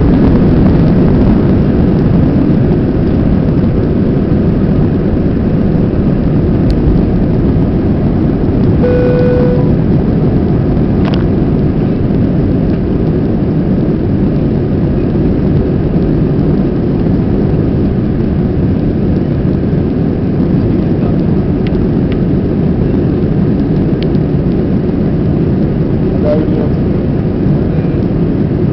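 Airbus A321 cabin noise in flight: the steady rush of engines and airflow heard from inside the cabin. About nine seconds in, a single short cabin chime sounds over it.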